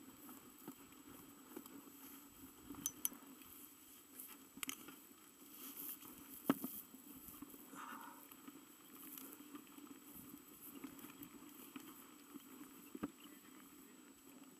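Faint handling noise from a landed hang glider being moved on the ground: scattered light knocks and clicks from its frame and rigging wires, the sharpest about halfway through, over a low steady hum.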